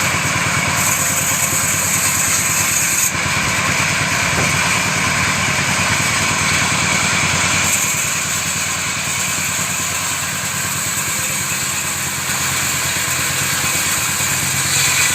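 Woodworking machine running steadily: a continuous low hum under a high hiss that shifts in level a few times.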